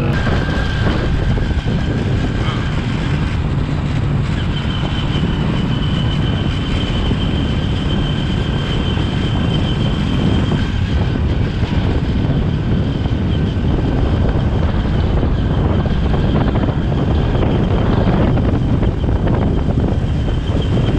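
Motorcycle tricycle taxi riding steadily, its small motorcycle engine running under dense wind and road noise on the microphone. A thin, steady high whine sits over it for several seconds in the middle.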